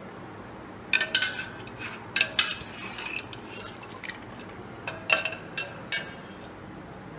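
Stainless wire-mesh skimmer clinking and scraping against an aluminium pot and colander while cooked rice is scooped out. There are two clusters of ringing metal knocks, one from about a second in to about three seconds, and another around five to six seconds in.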